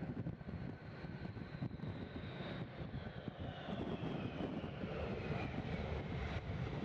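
MiG-31 interceptor's twin jet engines passing close as it lands, a rushing jet noise with a high whine that slides down in pitch as it goes by.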